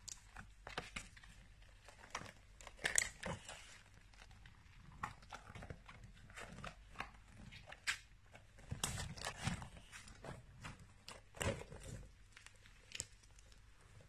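Hands squeezing and kneading a giant clear plastic ball packed with water beads (Orbeez): faint, irregular crinkling and crackling of the plastic skin, with a few louder crackles.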